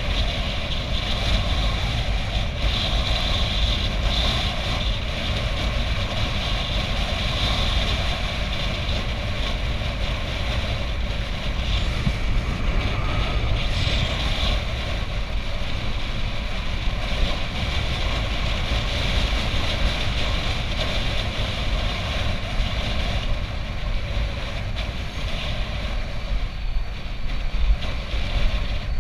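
Steady wind rumbling on the microphone of a camera on a moving bicycle, over a constant haze of road and vehicle noise.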